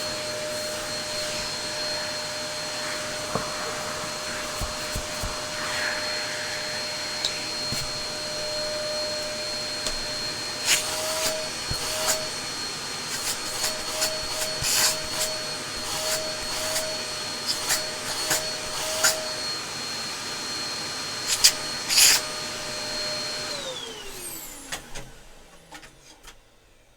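Dyson DC03 upright vacuum cleaner running with a steady whine, a bit noisy, with a few sharp knocks as it is handled. Near the end it is switched off and the motor winds down, its pitch falling away to quiet.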